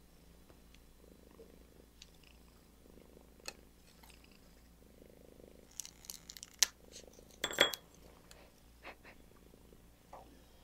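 A cat purring softly in slow, even cycles, with sharp clicks and taps from a knife slicing green chili pepper over a small ceramic bowl. The loudest clicks come about six to eight seconds in.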